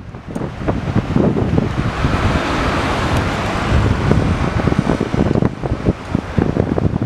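Wind buffeting the microphone with a gusty low rumble, while a car passes on the road, its tyre hiss swelling about two seconds in and fading after about five seconds.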